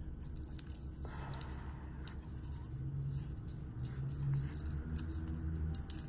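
Small clicks and scrapes of a charging cable and its packaging being handled, over a low steady hum, with a sharper click near the end.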